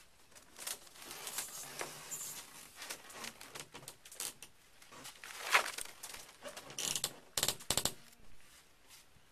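Handling noise: rustling and scraping as a large curved sheet is shifted and a plastic tarp is moved around it. There is a louder rustle about five and a half seconds in and a quick run of sharp clacks around seven to eight seconds.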